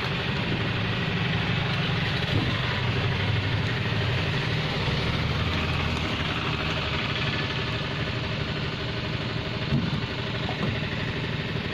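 An engine running steadily at idle: a low hum with a fast, even pulse.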